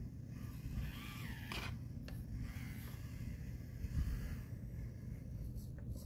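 Axial SCX24 micro RC rock crawler climbing rock: its small electric motor and gears whine, the pitch rising and falling with the throttle, with tyres scraping on the stone and a few sharp clicks.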